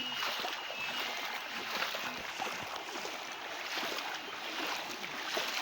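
Steady rush of flood water with small splashes and sloshing, typical of people wading through a flooded river.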